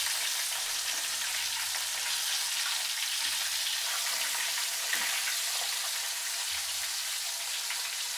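Whole snappers frying in hot oil in a pan: a steady sizzle with fine crackling.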